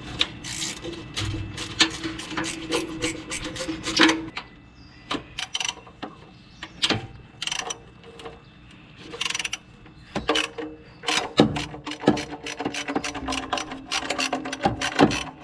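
Ratchet wrench clicking in bursts of rapid strokes, with metal scraping, as a rusted bolt is loosened and backed out.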